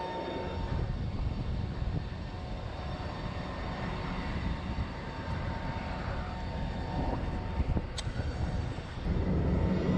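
Steady engine noise of aircraft and ground vehicles on an airfield apron, a low rumble with a constant whine that fades about seven seconds in. A single sharp click sounds about eight seconds in.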